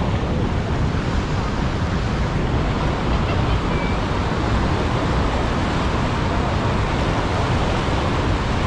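Fast, muddy floodwater rushing and churning over rapids: a steady, unbroken water noise.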